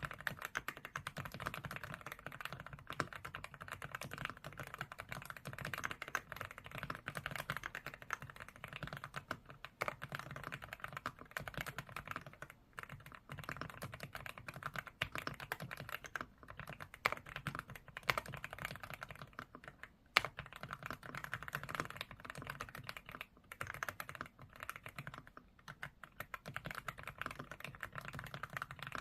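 Continuous fast typing on an Aula mechanical keyboard fitted with Outemu Cream Pink switches: a dense stream of key clacks, broken by a few brief pauses.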